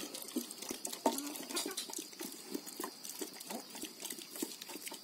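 Pig eating wet feed: many quick smacking, slurping sounds, with a few short animal calls, the loudest about a second in.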